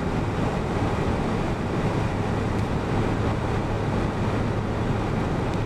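Steady road and engine noise heard from inside a moving vehicle's cab, an even rushing sound over a constant low drone.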